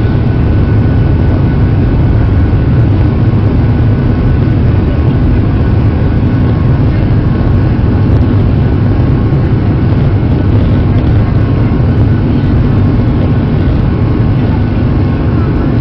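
Jet airliner's turbofan engines at climb power after takeoff, heard inside the cabin: a loud, steady noise with a deep rumble and a faint, steady whine above it.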